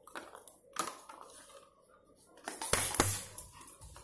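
Scattered clicks and knocks from a Labrador puppy playing on a hard floor close to the microphone, with a louder cluster of knocks about three seconds in.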